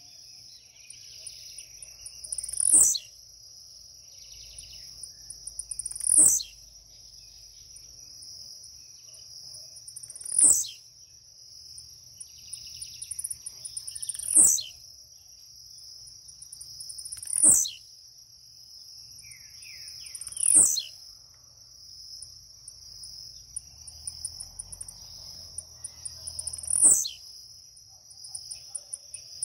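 Caged blue-black grassquit (tiziu) singing its short song seven times, each a brief sharp falling note, every three to four seconds. A steady, high insect drone runs underneath.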